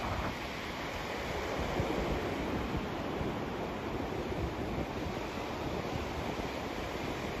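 Steady, continuous white-noise-style rushing hiss played as a sleep sound, deeper in the low end and shifting slightly in level without any distinct events.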